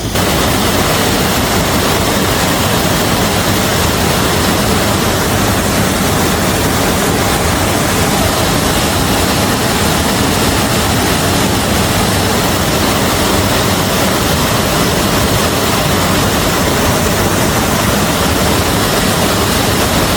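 Loud, steady rushing roar of a waterfall pouring into a plunge pool, unbroken throughout.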